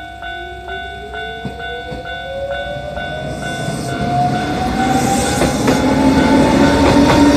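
A Japanese level-crossing alarm rings with steady repeated dings, about two a second, as a Mizuma Railway 1000-series electric train (ex-Tōkyū 7000) pulls away from the station and over the crossing. A rising whine climbs steadily in pitch as it gathers speed, and wheel and rail noise grow louder in the second half.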